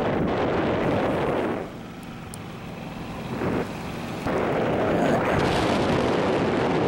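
Wind buffeting a camera microphone high up under a parasail: a rough, steady rush that eases for a couple of seconds about a second and a half in, then comes back.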